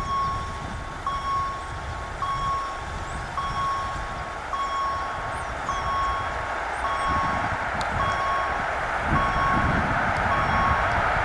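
Level crossing warning signal repeating a single electronic tone about once a second, about ten times, while an EP07 electric locomotive and its passenger train approach and pass. The train's rolling noise grows steadily louder toward the end.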